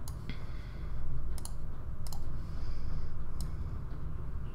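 A few sharp clicks of a computer mouse and keyboard, spaced out over the seconds, with a pair close together about two seconds in, over a low steady hum.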